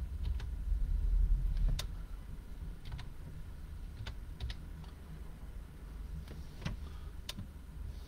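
Scattered, irregular clicks of a computer keyboard and mouse being used, with a low rumble during the first two seconds.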